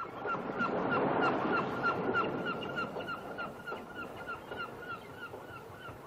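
A flock of seabirds calling: rapid short calls, several a second, over the steady rush of surf on a beach. The sound swells in the first second and slowly eases.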